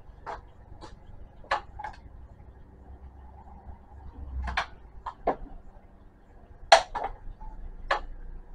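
About a dozen sharp, irregular clicks and clacks of equipment being handled on the bench, over a faint steady hum.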